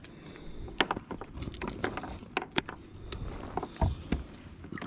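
Scattered clicks and knocks of gear being handled on a plastic fishing kayak, a plastic fish lip-grip among it, while a hooked blue catfish is being landed, with a couple of low thumps a little before the end.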